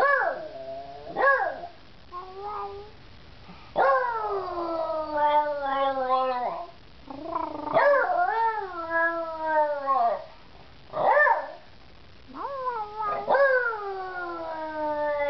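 A beagle howling: a few short yelps at first, then long drawn-out howls that slide down in pitch, with a short sharp call between them.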